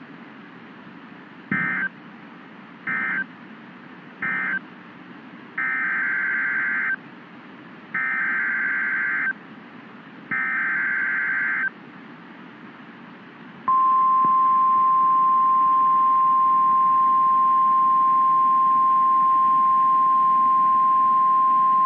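NOAA Weather Radio Emergency Alert System tones. First come three short bursts of warbling SAME digital data, the end-of-message code closing the tornado warning. Then come three longer data bursts, the SAME header for the next warning. About fourteen seconds in, the steady 1050 Hz weather-radio alert tone starts and holds, over a faint radio hiss.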